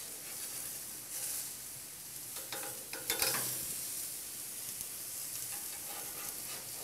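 Ground turkey patties sizzling steadily on a hot grill's grates as they are seared for grill marks, with a few short scrapes of a metal spatula against the grate, the loudest about three seconds in.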